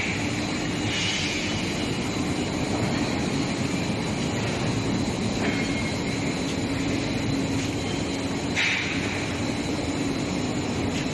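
Induction hardening and tempering line for long steel bars running: continuous industrial machine noise with a steady low hum and a faint high steady whine. Brief louder noisy surges come every few seconds.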